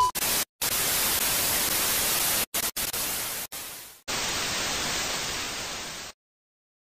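TV-static sound effect: an even white-noise hiss that drops out briefly a few times, fades around four seconds in, comes back as a second stretch of hiss and cuts off suddenly about six seconds in.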